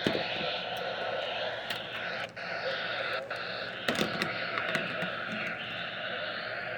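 Steady static hiss with scattered sharp clicks, several close together about four seconds in.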